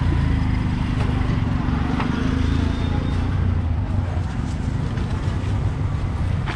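A vehicle engine running with a steady low hum amid market background noise, with a few scattered clicks and knocks.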